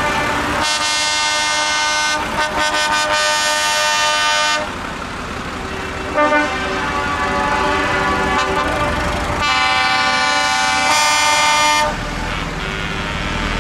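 Truck horns blowing in long held blasts as trucks pass: a loud blast of about four seconds, a fainter horn, then a second loud blast of about two and a half seconds. A low engine rumble comes in near the end.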